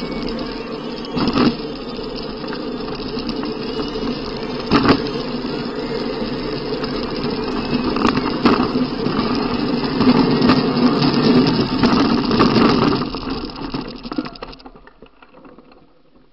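Soapbox cart rolling fast down a tarmac lane: a steady rumble and rattle of wheels and body, with sharp knocks from bumps that come more often and harder as it speeds up. The run ends in a crash off the road, and about two seconds before the end the noise dies away as the cart comes to rest.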